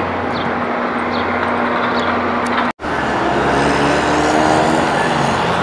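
City street traffic noise with a steady low hum. It drops out for an instant nearly three seconds in, then a vehicle engine is heard with its pitch climbing as it speeds up.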